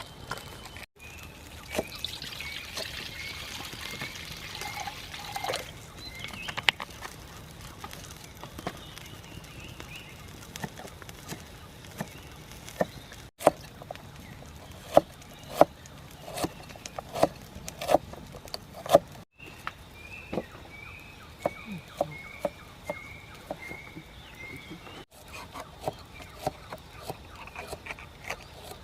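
Food-preparation sounds: short knocks and clinks, with water being poured or trickling. A bird in the background repeats a run of about eight short notes, twice.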